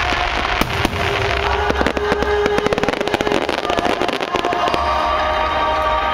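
Fireworks display: shells bursting in a dense run of rapid crackles for the first few seconds, thinning out about three and a half seconds in, with music playing over the display.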